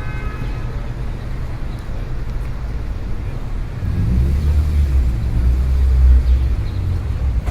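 City street ambience: a steady wash of road traffic, with one vehicle's low engine rumble swelling loud from about four seconds in as it passes close, then easing off.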